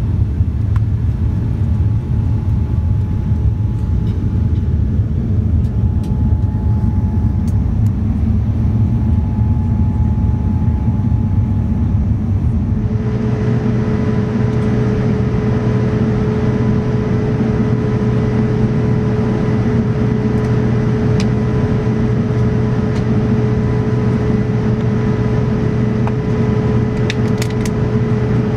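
Steady engine and airflow noise inside a Boeing 787-9 airliner's cabin during descent. About halfway through a steady hum joins it.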